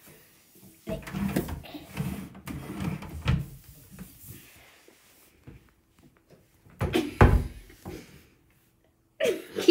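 Rummaging inside a bathroom cabinet: scattered knocks and bumps against the cabinet during the first few seconds, then one loud thump about seven seconds in.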